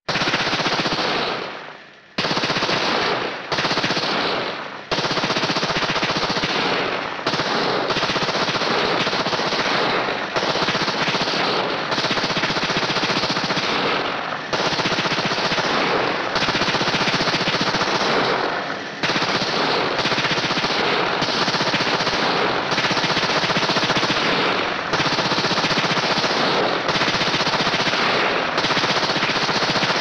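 Machine gun firing long sustained bursts of rapid automatic fire. It starts abruptly, the first burst dies away about two seconds in, and then fire goes on almost without let-up, broken only by brief pauses every second or two.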